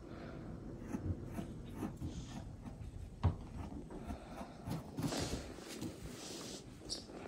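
A rabbit nosing and pushing rubber play balls against a desk chair's base on carpet: soft rubbing and scuffing with light knocks, one sharper knock about three seconds in, and a stretch of rustling about five seconds in.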